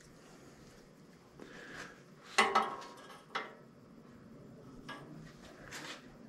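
Light metallic clinks and knocks of small metal parts and tools being handled. The loudest come about two and a half seconds in, with a few more after that.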